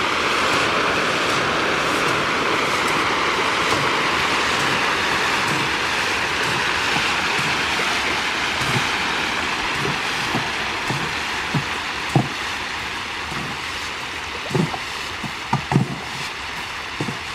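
Dense, steady splashing of a pond crowded with catfish fingerlings thrashing at the surface as pellet feed is scattered over them. It eases a little toward the end, when separate plops and slaps stand out.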